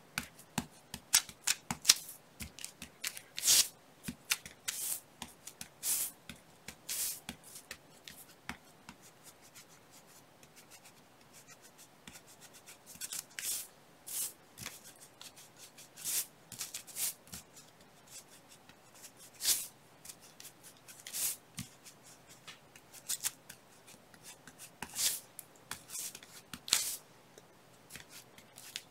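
Foam sponge dabbing ink onto a paper doily: irregular light pats and paper rustles, with a lull of a few seconds about a third of the way in.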